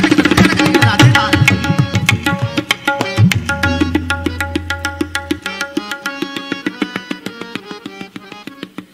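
Tabla playing a fast composition of rapid strokes, a tipalli, over a steady melodic accompaniment line, fading out steadily toward the end.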